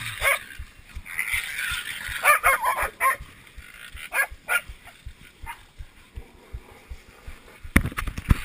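Pack of pig-hunting dogs yelping and barking in short broken cries while holding a wild pig, with a burst of crackling brush near the end.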